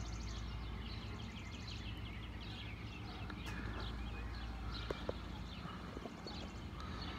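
Birds chirping and twittering outdoors: many short high chirps, with a fast high trill in the first two seconds, over a steady low rumble. A couple of faint clicks about five seconds in.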